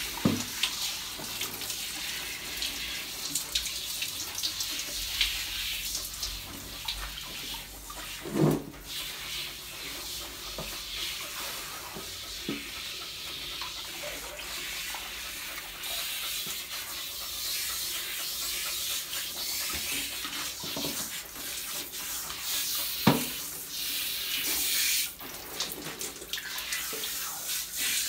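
Handheld shower head running, water spraying steadily onto a dog and into a plastic tub during a bath. Twice a short thump stands out over the hiss.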